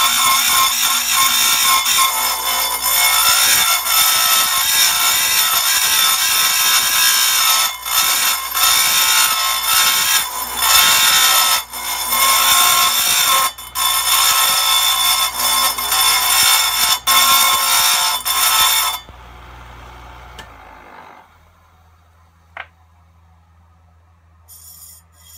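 Dressing stone held against the spinning abrasive wheel of a Power Fist bench-mounted chainsaw chain grinder: a loud, steady, high-pitched grinding with a few brief breaks, cleaning glazing off the 1/8 inch wheel. About 19 seconds in the grinding stops and the motor hum dies away a couple of seconds later.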